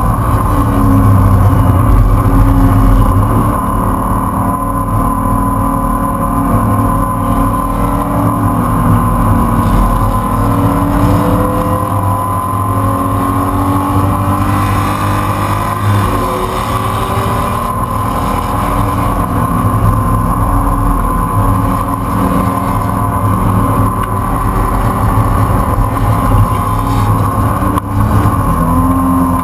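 A race car's engine pulling hard at high revs, heard from inside the open-windowed, caged cockpit. Its pitch rises and falls as the driver accelerates, brakes and shifts.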